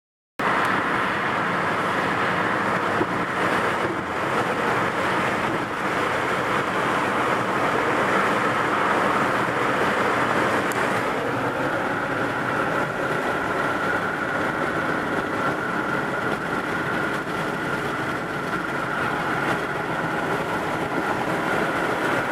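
Steady road and wind noise inside a moving car's cabin, with a thin steady tone joining it about halfway in.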